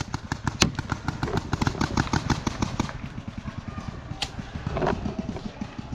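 Paintball fire: a rapid run of sharp pops and snaps, about eight to ten a second for roughly three seconds, thinning to scattered shots after that.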